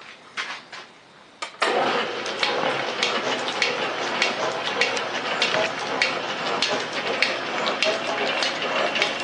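A Rhodes metal shaper starts after a few light clicks, about a second and a half in. It then runs steadily with a hum and a regular clack about every 0.6 s as the ram strokes back and forth, taking a roughing pass on a cast part.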